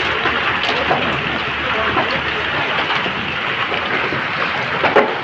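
Heavy rain falling steadily, a dense hiss dotted with small drop impacts, with one louder knock near the end.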